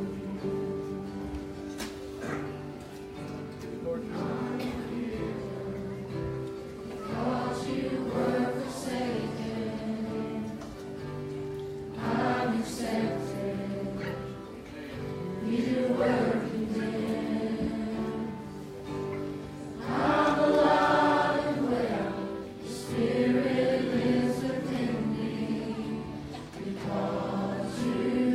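A church congregation singing a gospel hymn together with musical accompaniment, in phrases that swell and fade.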